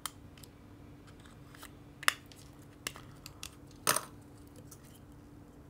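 A few sharp clicks and taps of a small screwdriver working at a plastic camera lens assembly, the loudest about two and four seconds in, over a faint steady low hum.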